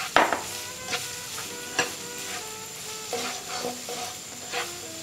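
Chopped onion and garlic sizzling in hot oil in a stone-coated wok, stirred with a black spatula that scrapes and knocks against the pan several times, the sharpest stroke just after the start. This is the first stage of the sauté, cooking the onion until soft and fragrant.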